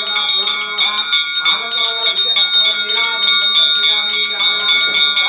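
Brass puja hand bell (ghanta) rung rapidly and without pause, several strokes a second, with voices beneath it.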